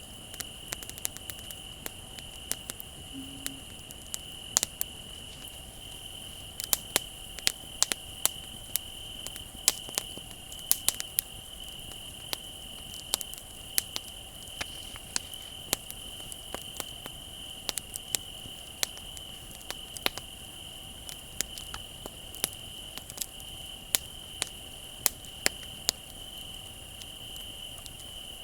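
Wood bonfire crackling, with sharp irregular pops and snaps several times a second at the busiest moments. Crickets trill steadily and unbroken underneath.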